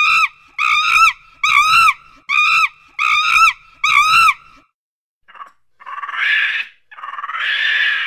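A monkey calling: six short, high squealing calls in quick succession, each rising and then falling in pitch, followed by two longer, harsher, raspy calls.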